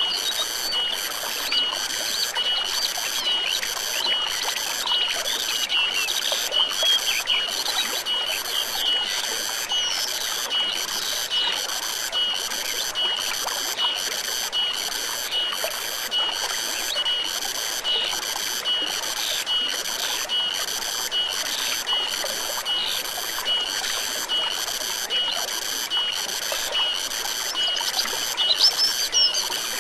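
Forest stream trickling, with a high pulsing call repeating a little over once a second and scattered bird chirps.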